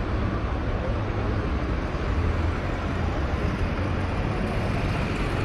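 Steady city road traffic, with cars and trucks passing in a continuous low rumble of engines and tyres.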